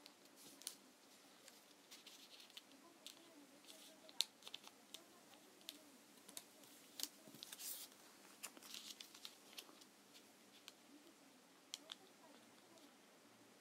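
Origami paper being folded and creased by hand: quiet crinkles and rustles with scattered sharp little clicks as the creases are pressed down. The sharpest click comes about four seconds in, and the crinkling is busiest around seven to nine seconds.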